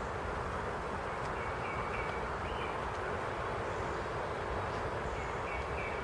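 A small bird calling a quick series of about four short, high notes about a second in, and the same series again near the end, over a steady rushing background noise.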